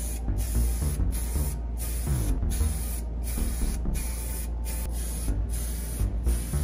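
Aerosol can of primer spraying in a run of short bursts: a hiss that breaks off briefly between passes.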